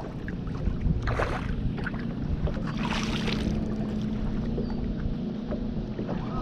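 Wind buffeting the microphone over lake water on an open boat deck, a steady low rumble with a faint steady hum, broken by two brief hissy bursts about a second in and around three seconds in.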